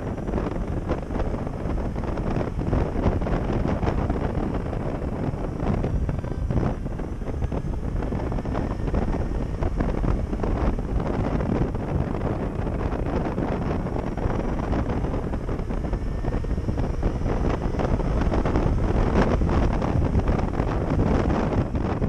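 Wind rushing over the microphone of a moving electric motorcycle, with a faint high whine from its electric drive that slowly rises and falls in pitch.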